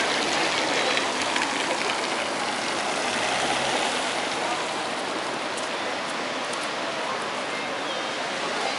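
Steady rain falling on a wet city street: an even hiss of rainfall and splashing on the paving.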